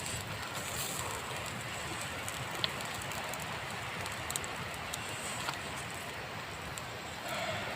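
Steady hiss of outdoor background noise with a few faint, scattered clicks.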